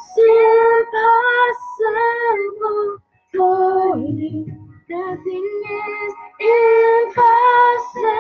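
A woman singing a melody, held notes with short breaks between phrases and a brief pause about three seconds in.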